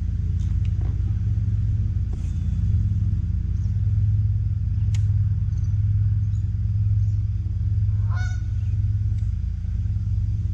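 Steady low rumble on a fishing boat, with a goose honking once, briefly, about eight seconds in.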